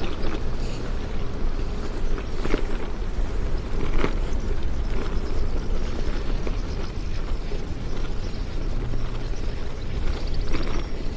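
Strong wind buffeting the microphone: a steady low rumble with a couple of brief sharper gusts or knocks a few seconds in.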